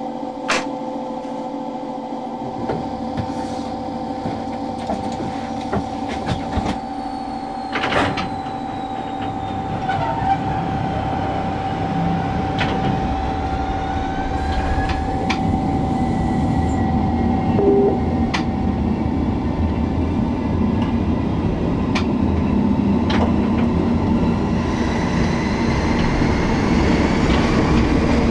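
A 1958 DB class E10 electric locomotive on the move, heard from its cab: a steady running hum with sharp clicks a few seconds apart as the wheels cross rail joints and points, and a few rising whines. The running noise grows louder over the second half.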